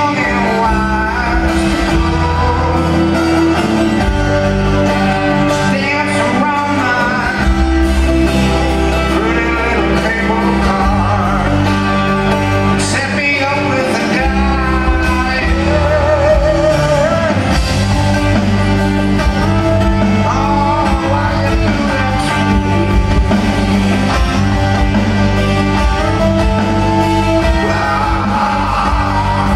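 A rock band playing live: a sung lead vocal over electric guitars, bass and drums.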